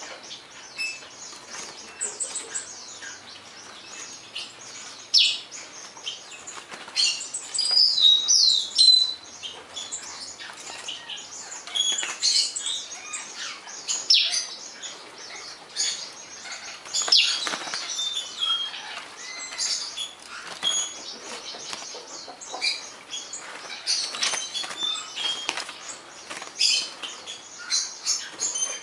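Female blue-crowned hanging parrot (serindit) calling continuously: a rapid stream of short, high chirps and squeaks with frequent louder bursts.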